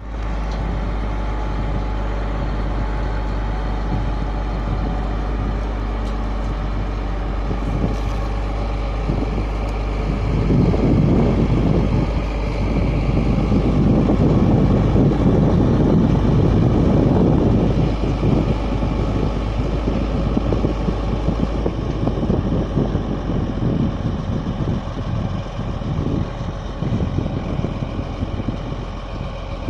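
Case IH Steiger 500 HD four-wheel-drive tractor's diesel engine running under load as it pulls a Tiger-Mate 200 field cultivator through stubble. A steady heavy drone, louder and rougher for several seconds in the middle, then easing as the tractor draws away.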